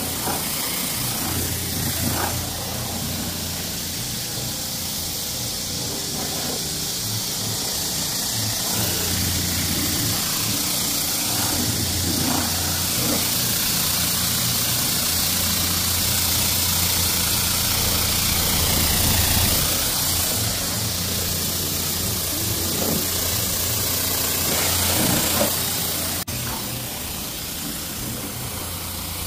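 High-pressure car wash wand spraying water onto a car, a steady hiss over the low, even hum of the wash's pump motor.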